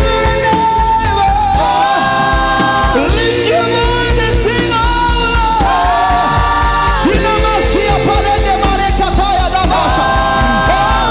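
Live gospel worship music with a steady beat and sustained singing or melodic lines.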